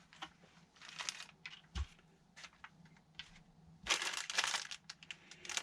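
Light clicks and taps of plastic parts and packaging being handled, then a small plastic bag crinkling from about four seconds in.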